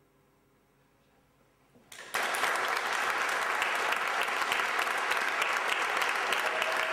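After a faint quiet stretch, an audience breaks into applause about two seconds in and keeps clapping steadily.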